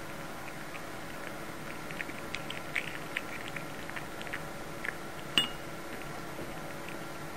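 A cat eating soft food from a ceramic bowl: small, irregular licking and chewing clicks, with one sharper clink against the bowl that rings briefly about five seconds in.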